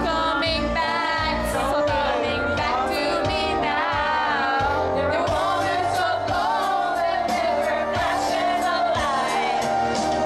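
Karaoke: women singing a pop song into a microphone over a backing track.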